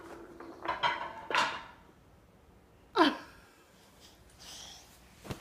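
A 10-month-old baby's wordless vocal sounds: short breathy cries about a second in, then one loud, sharp squeal that falls in pitch about three seconds in.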